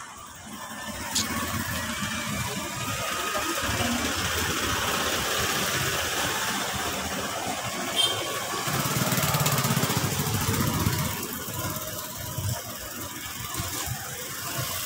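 A vehicle engine running, with a low rumble that grows louder for a couple of seconds about nine seconds in.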